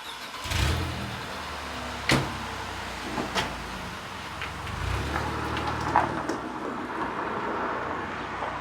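Scattered knocks and clunks over a steady background noise, about four sharp ones spread through, with a low rumble near the start and again about halfway: things being handled and loaded or unloaded around a car.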